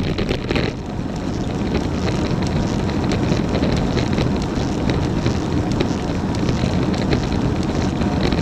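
Road bike being ridden, heard from a bike-mounted action camera: steady wind buffeting the microphone over road and tyre rumble, with faint, short, high ticks recurring now and then.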